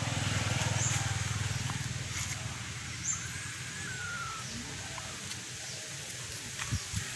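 Outdoor background with a low steady hum, a few short high-pitched bird chirps, and one thin drawn-out whistled note about three seconds in; a few light clicks near the end.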